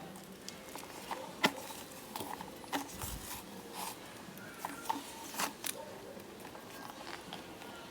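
Irregular light clicks and knocks of hard plastic and rubber being handled: the removed air intake duct and hose being turned over and moved about, with one dull thump about three seconds in.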